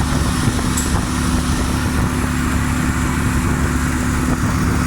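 2019 Nissan Almera's engine idling, a steady rumble with a constant hum at one pitch over it.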